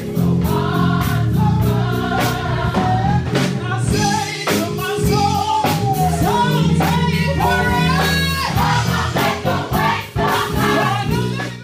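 Gospel choir singing an upbeat praise song together over a heavy bass line and drums. The music cuts off abruptly at the very end.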